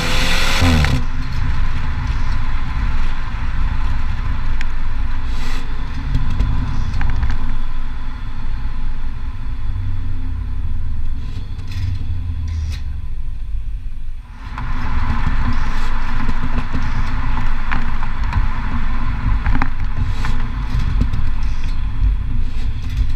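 Exhaust of a stock BMW 125i with its B48 2.0-litre turbocharged four-cylinder in Sport+ mode: a rev falls away about a second in, then a low rumble with a few short sharp cracks. A rushing hiss joins about two-thirds of the way in.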